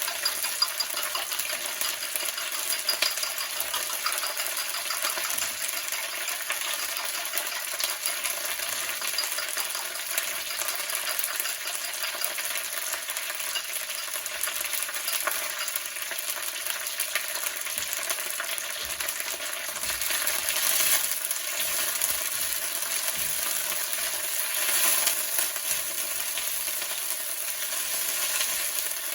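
Fresh mint leaves frying in hot sesame oil in a pan: a steady sizzle with crackling that swells louder twice in the latter part. The crackle is water left in the washed mint cooking off.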